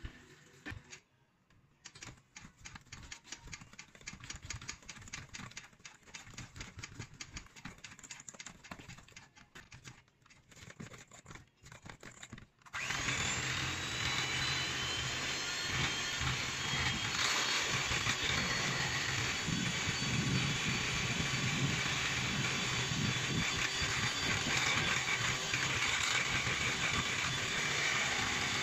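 Light, irregular clicks and rattles. About twelve seconds in, these give way abruptly to a loud, steady whir of a handheld electric milk frother whisking a thick chocolate mixture in a stainless steel bowl.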